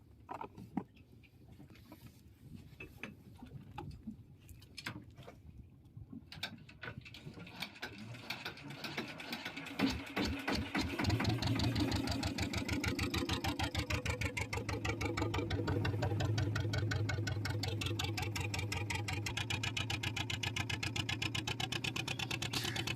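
Scattered knocks and clatter on the boat, then about ten seconds in the small fishing boat's engine starts and runs steadily with a fast, even chugging, taking the boat under way.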